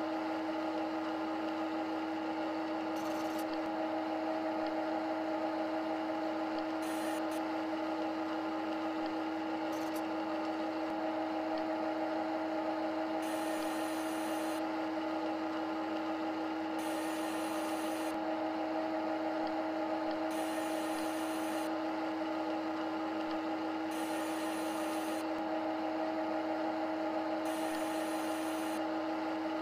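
Simulated CNC lathe machining sound: a steady hum of a few fixed tones, with a brighter hiss coming in and out every three to four seconds.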